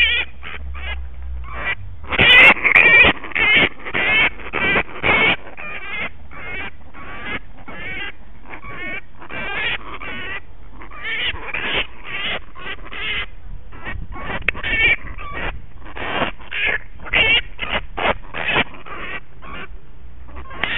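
Grey-headed flying-fox screeching: a long run of harsh, rapid, repeated calls, loudest about two to five seconds in. These are the calls of an agitated, defensive bat.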